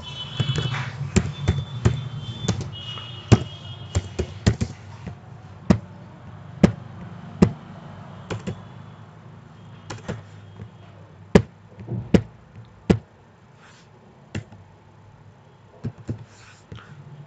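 Computer keyboard keystrokes: sharp single taps at an irregular pace, some in quick runs of two or three and some alone, as characters are typed in.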